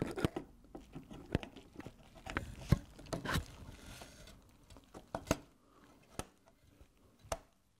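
Light clicks and taps of a RAM stick being handled and pushed into a motherboard memory slot, with a few sharper clicks as it seats.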